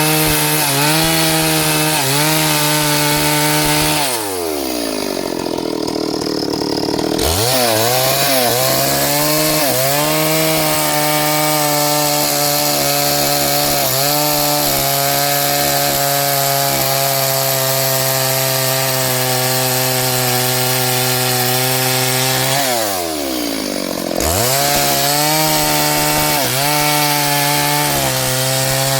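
Small two-stroke chainsaw cutting through wood at high revs, its pitch dipping slightly under load. Twice it drops back toward idle and then revs up again.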